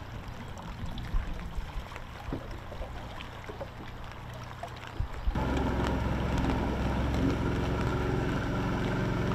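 A low hum with scattered small ticks, then from about five seconds in a bass boat's outboard engine running at speed, a steady drone that cuts off suddenly near the end.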